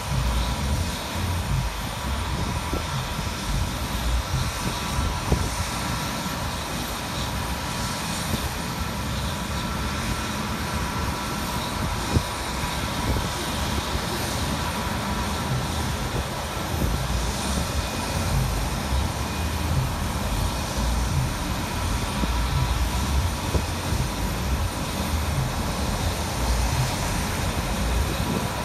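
Jet airliner engines running at taxi power: a steady whine over a low, uneven rumble.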